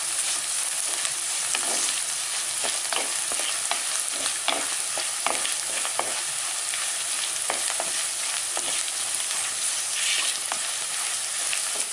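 Shallots and dried red chillies sizzling steadily in hot oil in a clay pan, stirred with a wooden spatula that scrapes and knocks against the pan in short, irregular strokes.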